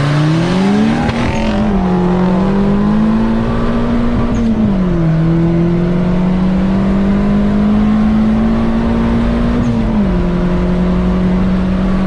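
Turbocharged single-cam D16 four-cylinder of a Honda Civic wagon at full throttle from a standing launch. The engine note climbs quickly, then drops at an upshift about four and a half seconds in and again near ten seconds, rising more slowly in the higher gears.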